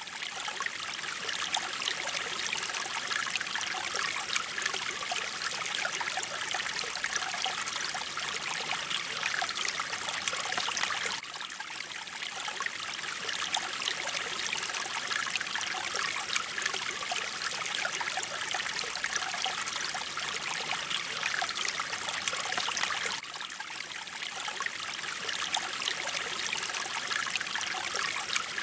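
Mountain stream of flowing water, a steady bright rushing trickle. The level dips briefly twice, about eleven and twenty-three seconds in.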